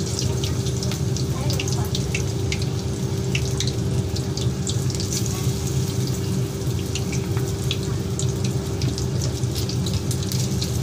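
Chicken pakora pieces deep-frying in hot oil in a wok: continuous sizzling with many scattered sharp pops and crackles, over a steady low hum.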